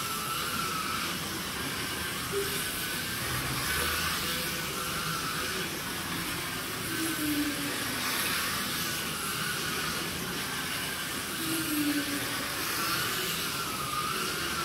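Slot cars running laps on a Carrera track: small electric motors whining and the cars rattling along the plastic slots, the whine rising and falling over and over as the cars speed up on the straights and slow for the corners.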